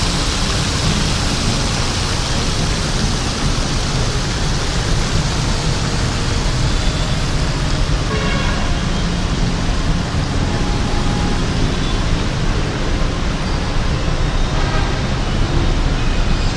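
Steady city traffic noise of motorbikes and cars, with a heavy low rumble of wind on the microphone.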